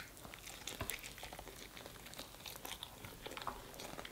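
A person chewing a bite of barbecue rib meat close to the microphone: faint, scattered wet clicks and smacks, with a slightly louder click as the bite is taken at the start.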